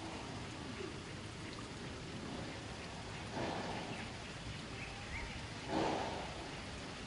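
Steady outdoor hiss like falling rain, with two louder stretches of noise about three and a half and six seconds in.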